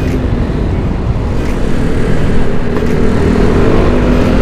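Bored-up Yamaha NMAX scooter's single-cylinder engine pulling through its CVT, fitted with a new SRP sliding sheave, as the scooter speeds up; a steady drone that climbs slightly in pitch over a heavy low rumble.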